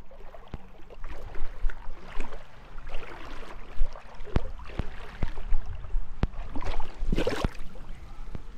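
Shallow seawater sloshing and splashing at the shore, broken by several sharp clicks and a louder rush of water about seven seconds in.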